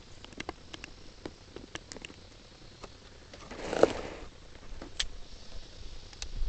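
Scattered small clicks and scrapes of handling, with one louder muffled knock about four seconds in and a couple of sharper clicks after it.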